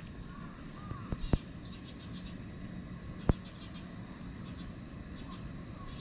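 Steady outdoor background with a high insect hiss and a faint bird chirp about a second in. Sharp clicks break through twice near the start and once, loudest, a little past three seconds.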